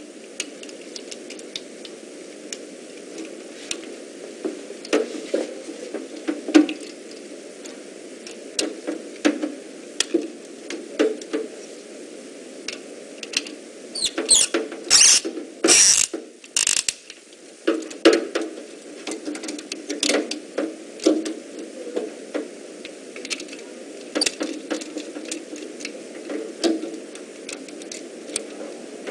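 Screwdriver working the terminal screws of a two-pole circuit breaker held in the hand, fastening the black and red wires, with irregular small clicks and rattles of the breaker and tool. A burst of louder sharp clicks comes about halfway through.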